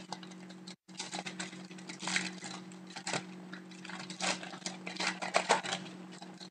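Foil wrapper of a hockey card pack crinkling and tearing as it is pulled open by hand, an irregular run of crackles with the loudest ones near the end.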